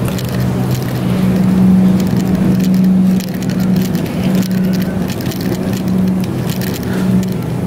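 Steady low hum over a constant rushing noise, the sound of open refrigerated display cases and store ventilation, with faint clicks and rustles over it.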